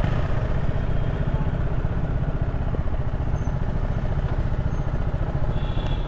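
Motorcycle engine running steadily at low revs as the bike rolls slowly in to park.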